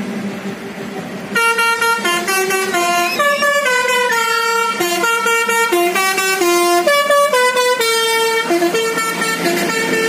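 Tour bus 'telolet' multi-tone air horn, starting about a second and a half in and playing a quick melody of stepped notes, loud.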